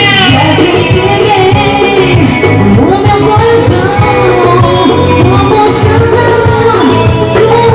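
Live band playing loud, amplified dance music with a steady beat, a singer's voice over it.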